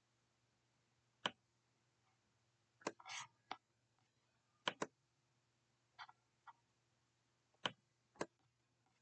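Computer mouse clicking: several sharp, brief clicks spaced a second or two apart, some in quick pairs, over a faint steady hum.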